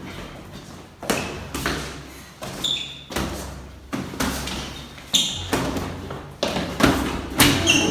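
Boxing gloves landing in a sparring exchange: a quick, irregular series of padded thuds, about a dozen, echoing off the tiled walls.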